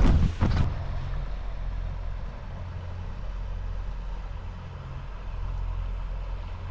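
An engine running steadily with a low, even hum, after a few short knocks at the very start.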